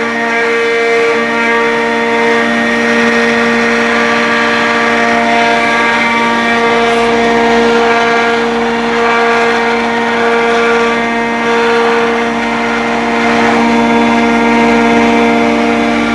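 CNC router with a rotary axis running, machining a wooden mihbaj: a steady whine of spindle and stepper motors, several tones that rise and fall in strength every few seconds, over a rushing cutting noise.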